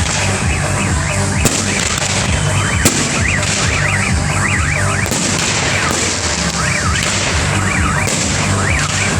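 Fireworks display: repeated rising-and-falling whistles over a steady pulsing low rumble, with two sharp pops about one and a half and three seconds in.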